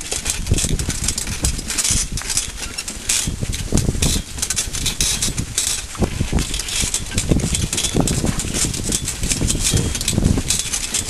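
Pony-drawn wheelchair carriage rolling over rough, leaf-covered woodland ground: its metal frame and shafts rattle and clatter continuously, with irregular knocks and thumps as the wheels go over bumps.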